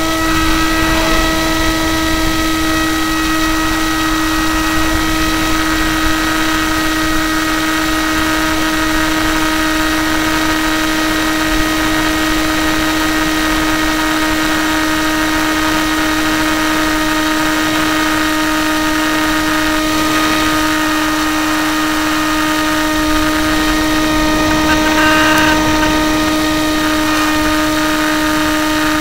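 Electric motor and propeller of a Hawk Sky RC plane running at steady throttle, a whine held at one unchanging pitch, over a rushing hiss of wind on the onboard camera.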